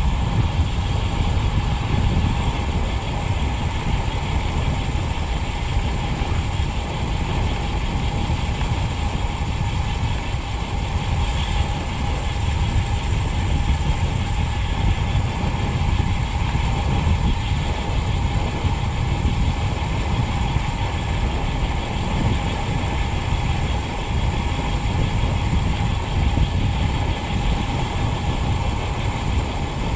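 Elite ENT wheel's rear freehub buzzing as a steady fast ratchet while the road bike freewheels downhill at about 45 km/h, mixed with heavy wind and tyre noise on rough asphalt.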